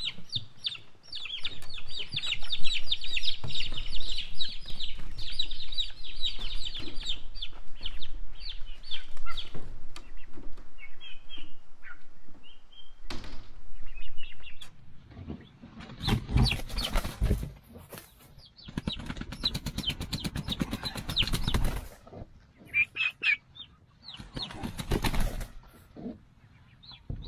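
Turkey poults peeping in a dense high chorus, thinning out after about eight seconds. From about the middle there are several loud bursts of wing flapping and rustling as the poults are handled and set down.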